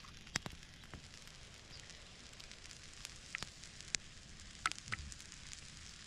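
Small wood campfire crackling, with a scatter of sharp pops, most of them between about three and five seconds in, over a steady hiss from a pan of tomato sauce and eggs sizzling on the flames.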